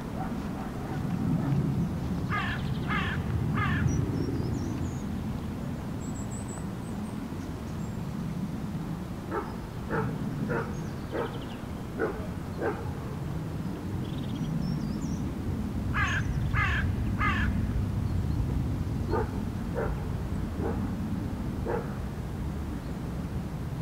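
Crows cawing: two runs of three loud caws, one a couple of seconds in and one about two-thirds of the way through, with longer runs of softer, more distant caws between and after them. A steady low rumble and a few faint high bird chirps lie underneath.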